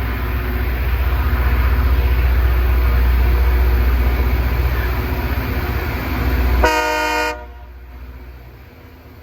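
Loram rail grinder passing close while grinding the rail: a heavy low rumble under a harsh grinding hiss. Near the end, a short horn blast of several tones, after which the grinding noise drops away.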